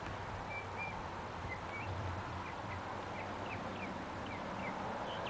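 Small birds chirping, short high calls scattered throughout, over a steady low hum and hiss.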